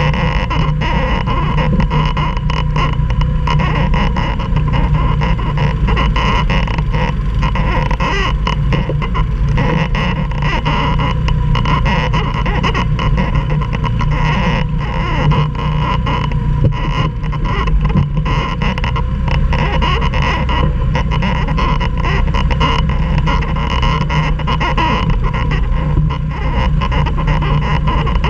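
Four-wheeler (ATV) engine running steadily, with a constant patter of rattles and knocks over it.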